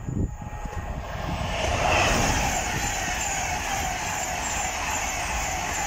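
LNER passenger train passing close by, its wheels on the rails making a steady rushing rumble that swells about a second and a half in and then holds.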